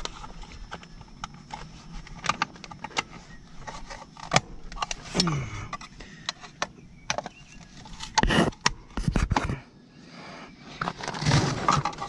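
Scattered clicks, taps and scrapes of a screwdriver and wiring being handled inside an air-conditioner condenser unit, with a cluster of knocks about eight to nine seconds in. A short low voice sound comes about five seconds in.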